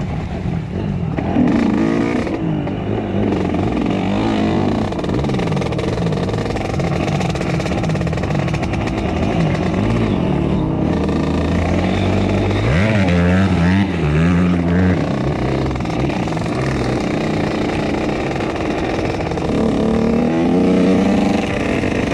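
2003 Yamaha YZ125's single-cylinder two-stroke engine being ridden, its pitch rising and falling with the throttle, with sharp revs about halfway through and again near the end.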